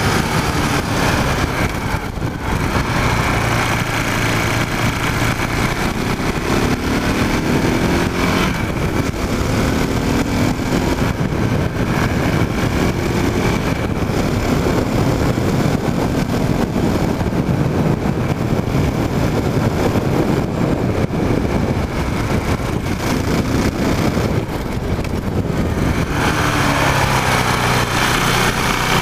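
KTM Duke motorcycle engine heard from a microphone on the bike while riding, its pitch rising several times as it accelerates and easing off in between. A steady rush of wind noise runs under the engine.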